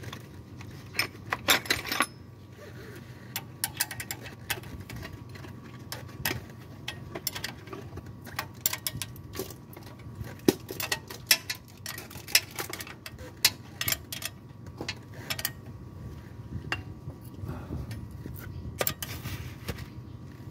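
Irregular metallic clicks and clinks of a spanner working the bolts of an engine's balancer shaft housing, over a steady low hum.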